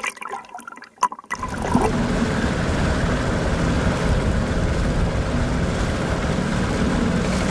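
Small boat's outboard motor running steadily, with water rushing. It cuts in about a second in, after faint water sounds.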